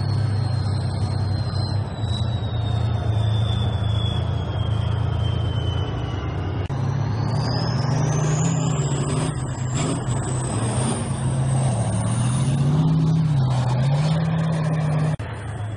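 Tank engines running as tanks drive past: a steady low engine note that starts to rise and fall in pitch about seven seconds in, with a high whine gliding down and then back up above it. The sound drops suddenly just before the end.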